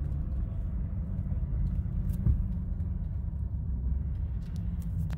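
Steady low engine and road rumble of a car being driven, with a single thump a little over two seconds in.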